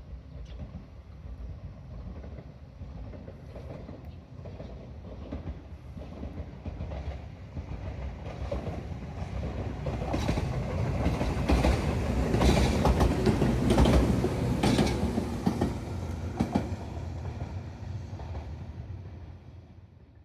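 Tobu 10000 series electric train approaching and passing on the Koizumi Line, its wheels clicking over the rail joints. It grows louder, is loudest about twelve to fifteen seconds in, then fades away.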